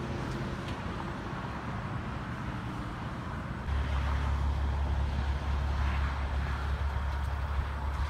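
Vehicle running on the road, with a steady low engine hum and road noise, getting louder about three and a half seconds in.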